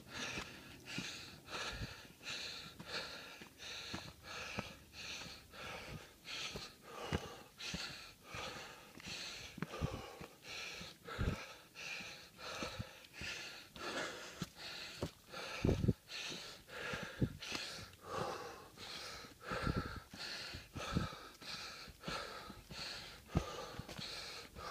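Heavy, rhythmic panting close to the microphone, about two breaths a second, from a hiker climbing a steep uphill trail, with a few low thumps now and then.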